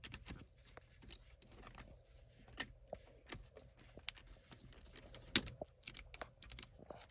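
Faint, scattered clicks and rustling of a car's shift boot and plastic console trim being worked loose by hand, with one sharper click about five and a half seconds in.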